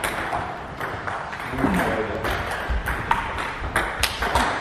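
Table tennis rally: the celluloid-type ball clicking sharply off the players' bats and the Donic table, a quick run of clicks thickening in the second half.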